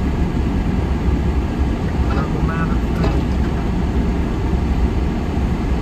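Steady low rumble of a vehicle driving slowly on a rough dirt track, engine and tyre noise heard from inside the cab. A few brief high chirps sound about two seconds in.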